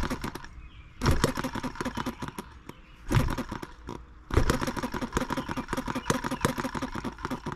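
H73 miniature brass single-cylinder model gas engine being spun over by hand at the flywheel, clattering rapidly in three bursts of one to three seconds each. It nearly starts but does not keep running.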